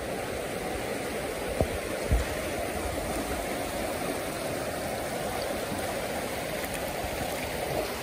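Soča river rushing over rocks and gravel in shallow rapids: a steady rush of water. Two brief low thumps come about one and a half and two seconds in.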